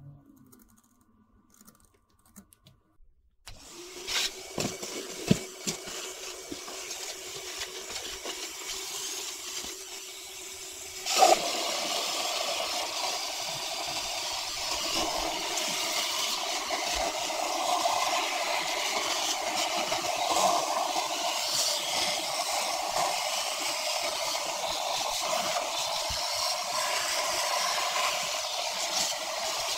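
Vacuum cleaner switched on with a click about eleven seconds in, then running with a steady rushing noise. Before that there is a quieter steady hum with a few knocks.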